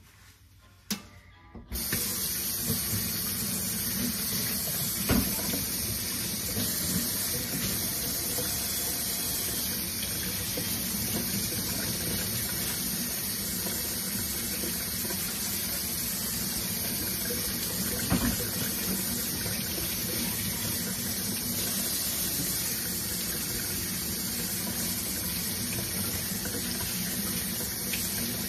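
Kitchen sink faucet turned on about two seconds in, then running steadily, the stream pouring onto a child's hair as it is rinsed.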